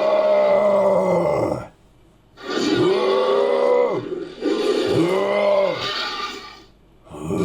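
Designed creature roars made from pitch-altered voice and sampled monster and animal calls: a call that ends about a second and a half in, then two more drawn-out roaring calls, each falling in pitch at its end, with brief silences between, and another starting near the end.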